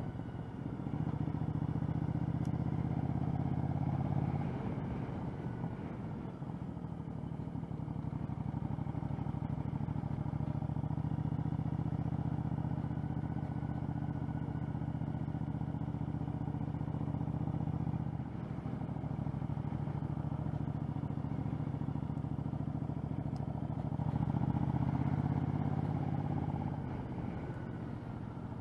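A 2013 Triumph America's 865cc air-cooled parallel-twin engine running as the bike is ridden, heard through the rider's helmet microphone. The drone drops away briefly several times (about five seconds in, again past the middle and near the end) as the throttle is eased, then pulls up again.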